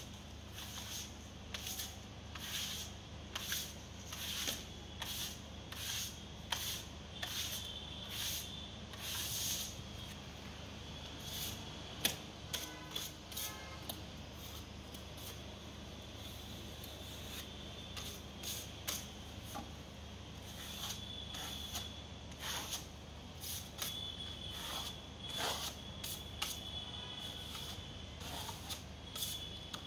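Steel hand trowel scraping and spreading wet screed across a concrete wall: short scraping strokes in irregular runs, thinning out for a few seconds midway.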